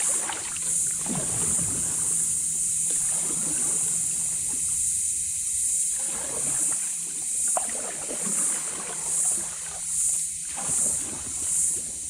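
A small boat under way with its motor running low, with a few knocks. Over it is a steady high-pitched buzz that begins to pulse about once a second in the second half.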